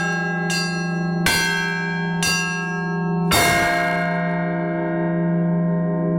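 Russian Orthodox church bells rung in a festive peal: a few strokes that come more and more slowly, then the heaviest stroke a little past three seconds in. After it the bells are left ringing on with a deep hum.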